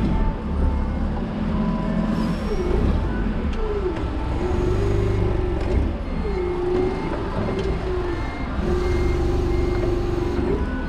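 Toyota counterbalance forklift working over a low rumble: a motor's whine drops and climbs back in pitch a few times, then holds a steady pitch for stretches, with faint short beeps now and then.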